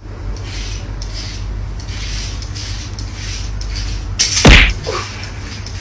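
A steady hiss with faint light rattling, then one loud sudden thump about four and a half seconds in.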